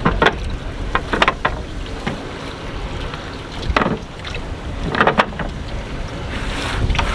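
Wooden companionway hatch boards on a sailboat knocking and clattering as they are handled and slid into place, about five knocks. Wind rumbles on the microphone throughout.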